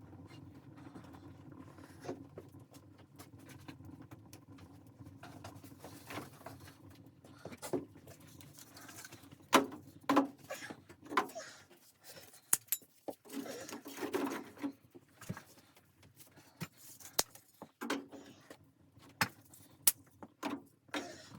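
Irregular knocks, clicks and rustles of objects being handled, a few sharp knocks about halfway through and near the end standing out.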